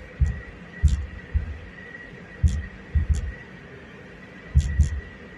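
Irregular thumping from the front end of a 2018 Subaru Outback 2.5i: about eight heavy thumps, some in close pairs, each with a sharp click. A faint steady high whine runs under them.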